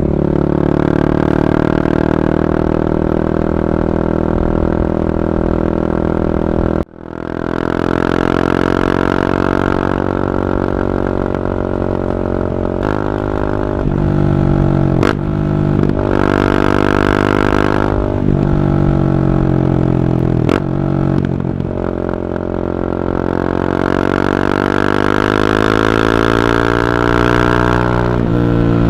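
Honda CB300R single-cylinder engine through an Akrapovic carbon exhaust while riding, its pitch rising under throttle and dropping back at gear changes several times. The sound drops out sharply for a moment about seven seconds in.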